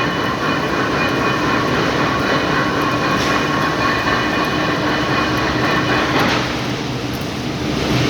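Small lathe running steadily, with a high whine over the machine noise that drops away about six seconds in while the lathe runs on.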